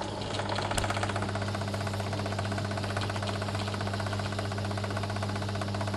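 Pillar drill's electric motor running with a steady hum while its bit cuts into thick steel lubricated with oil, a fast, even rattling chatter from the cut setting in about a second in.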